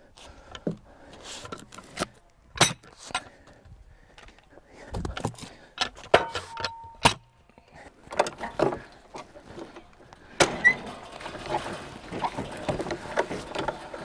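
Scattered knocks and clunks of a log and steel parts being handled at a portable band sawmill, with a brief squeak about six seconds in. From about ten seconds a continuous rattling, clicking noise starts as the saw head is worked.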